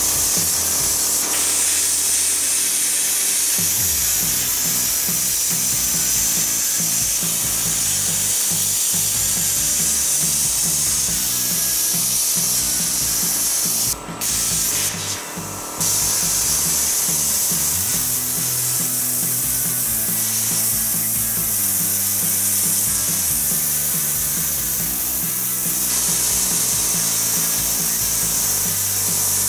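Hypertherm Powermax 30 XP plasma cutter cutting steel, a steady loud hiss of the air-plasma arc. It stops briefly twice a little under halfway through and restarts.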